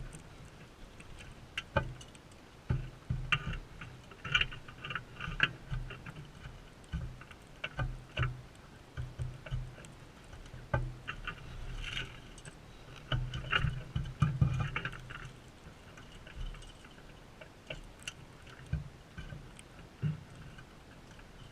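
Birds feeding at a seed feeder close to the microphone: irregular knocks, taps and scrapes of beaks and feet on the feeder, coming in quick clusters.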